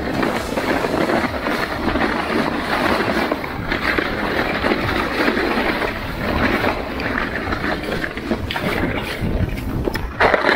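Sled sliding fast over snow: a continuous loud rushing, scraping hiss, with wind buffeting the microphone.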